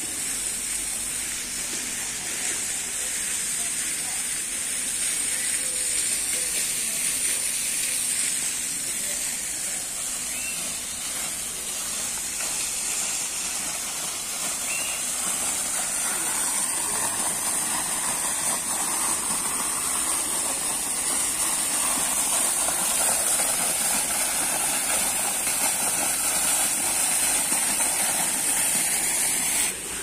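Steady high hiss of outdoor ambience with splashing water from a pond fountain, louder in the second half; the high hiss cuts off suddenly near the end.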